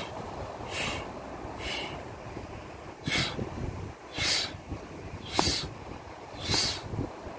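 A man's sharp, hissing breaths in time with an exercise, six of them about a second apart, over a steady low rumble of wind and surf.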